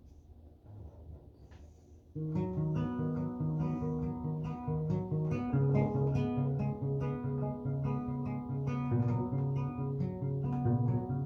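Acoustic guitar comes in about two seconds in, playing a picked pattern of evenly repeating notes over a low bass line as the instrumental opening of a song. Before it there is only a faint low hum.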